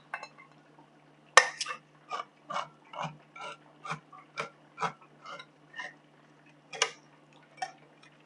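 A handheld manual can opener cutting around the lid of a tin can. There is a loud click about a second and a half in, then short clicks about twice a second as the key is turned.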